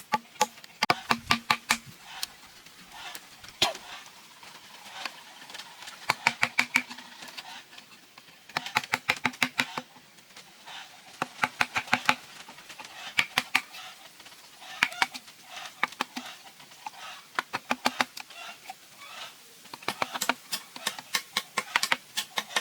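Bursts of rapid, sharp knocks, several a second, that stop and start again every second or two.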